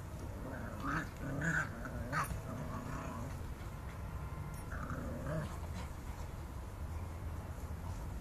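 Boxer dogs vocalising as they play-fight: short bursts of dog noises, loudest between about one and two and a half seconds in, with another bout around five seconds.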